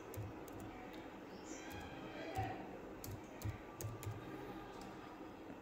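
Faint, irregular keystrokes on a computer keyboard as a word is typed.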